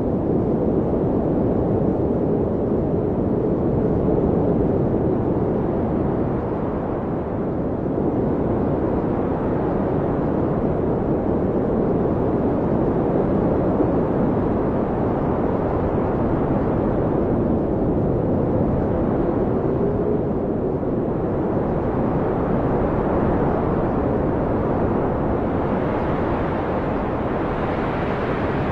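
Blizzard wind blowing hard and steadily, a low rushing noise with a faint howl that wavers in pitch, gusting brighter near the end.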